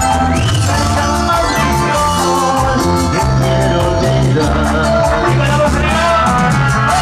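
Live band playing Latin dance music with a steady beat: electric bass, electronic keyboard and a drum kit with cymbals.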